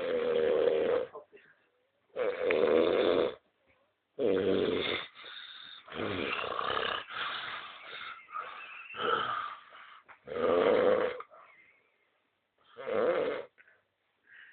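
Loud snoring: rasping snores about a second long, roughly every two seconds, with a stretch of quicker, uneven breath sounds in the middle.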